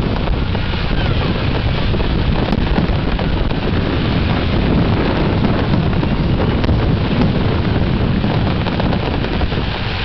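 Aerial fireworks bursting thick and fast in a barrage, the reports blending into a continuous rumble and crackle, with wind buffeting the microphone.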